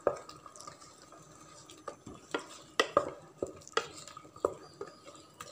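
Wooden spatula stirring chicken masala and green herb paste in a pot, with irregular sharp knocks and scrapes against the pot's side, thickest in the second half.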